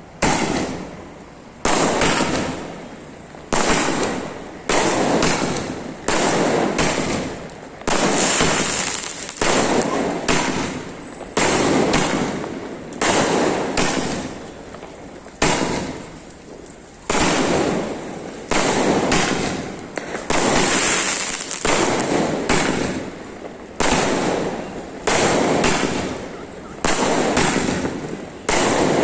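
A 60-shot aerial multishot firework cake firing in sequence, one sharp bang about every second to second and a half, each trailing off before the next.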